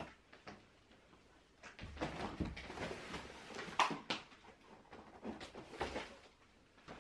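Large cardboard boxes being handled and set down against a wall: a rustling scrape of cardboard from about two seconds in, a sharp knock near four seconds, then a few lighter bumps.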